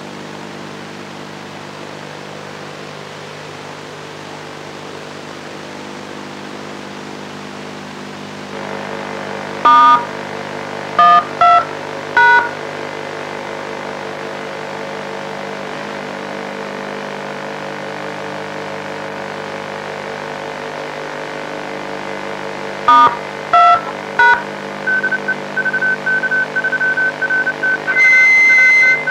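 Touch-tone (DTMF) beeps keying a microprocessor-controlled amateur-TV repeater over its audio channel: a group of four short two-tone beeps, then a group of three more, over a steady buzzing hum. Near the end comes a fast string of short single-pitch beeps and a brief, louder, higher steady tone as the repeater answers with its signal-report page.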